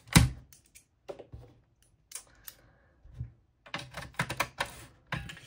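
Small screwdriver clicking and scraping against a modem's plastic housing and circuit board as the case is pried apart: one loud sharp click at the start, a few scattered taps, then a quick run of clicks near the end.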